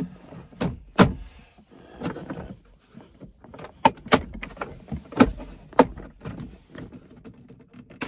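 Plastic center-console trim bezel of a GMT800 Chevy Tahoe being pried off with a screwdriver: several sharp snaps and clicks as its clips pop free, with plastic scraping and rattling in between.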